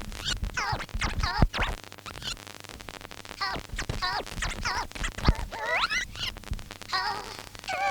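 Vinyl record on a turntable pulled back and forth by hand, so that short snatches of the tune's vocal sweep up and down in pitch with no beat running underneath. This is the tune being wound back and cued up for a rewind.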